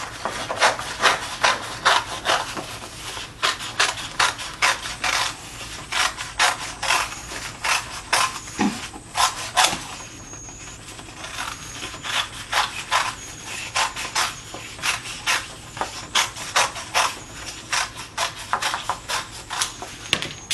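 Scissors snipping through two stacked sheets of paper while cutting out a circle, one short crisp cut after another, about two a second, easing off briefly about halfway through.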